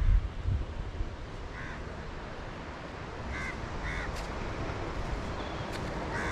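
Crows cawing: four short calls, two of them close together in the middle, over a steady background hiss, with wind buffeting the microphone in the first second.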